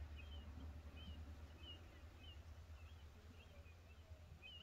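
Faint bird chirps: short, quick high calls, two or three a second, over a low steady rumble.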